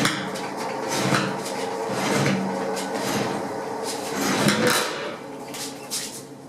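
Irregular metal clanks, knocks and rattles of a car chassis being shoved and jacked across a shop floor.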